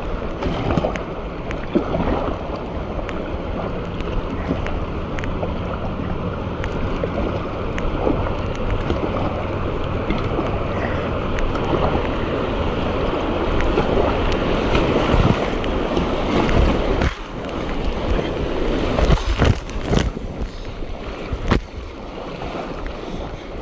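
River water rushing and churning around a kayak running rough water, with kayak paddle strokes splashing; the sharper splashes come near the end.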